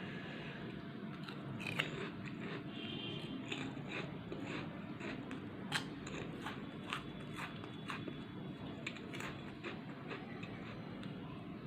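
Crisp snack chips being bitten and chewed close to the microphone: a run of sharp, irregular crunches.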